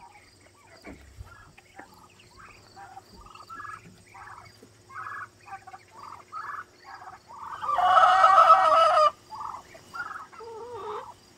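Muscovy ducklings peeping, a string of short calls about every half second, with one louder, longer call lasting over a second about eight seconds in.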